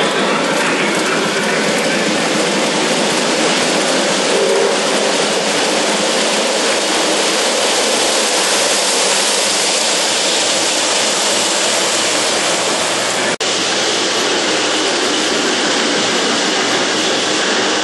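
Lionel O-gauge model train running on three-rail track, heard close up as a steady rolling rumble of wheels and motor. The sound cuts out for an instant about 13 seconds in, then carries on.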